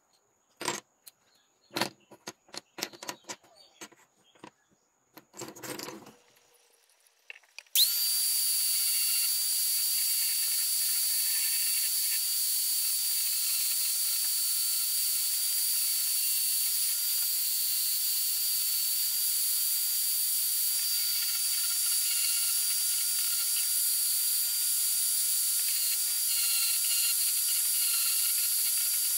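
A few scattered knocks and taps, then about eight seconds in an electric angle grinder starts up and runs steadily with a high whine and hiss, its disc grinding the edges of a small wooden box.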